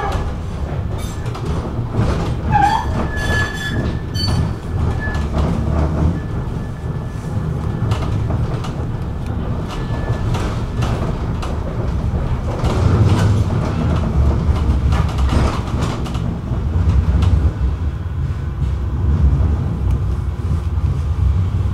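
Inside a Manchester Metrolink tram running along street track: a steady low rumble of wheels on rail and the traction motors. A brief high wheel squeal comes a few seconds in, and clicks are scattered throughout.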